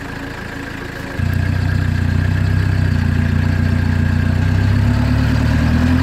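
Lada Niva engine idling, then picking up revs sharply a little over a second in and running steadily, a touch louder towards the end, as it works against the bog on low-pressure tyres.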